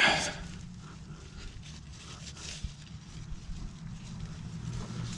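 A short rasping scrape as a gloved hand rubs over the oil filter, then faint rustling and small clicks from the hands working beside it.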